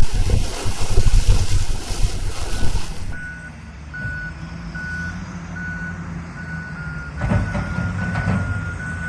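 A rush of loud noise for about three seconds cuts off suddenly, giving way to a heavy vehicle's reversing alarm beeping about one and a half times a second over a low engine hum. About seven seconds in there is a louder surge of engine noise.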